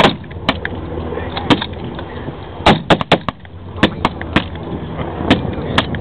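Rifles firing blanks in a WW2 battle reenactment: about nine sharp, irregular shots, some near and loud, others farther off. A steady engine drone runs underneath.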